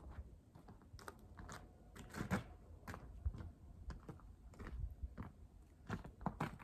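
Faint, irregular knocks and clicks, a few a second, over a low rumble; the loudest come about two and three seconds in.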